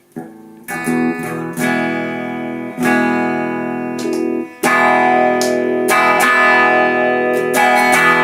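Electric guitar played through an amp: a handful of strummed chords, each left to ring, after a near-silent start.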